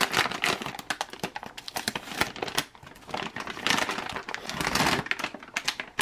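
Olive-drab foil-lined plastic ration pouch crinkling and tearing as it is ripped open by hand, with a longer stretch of dense crackling late on.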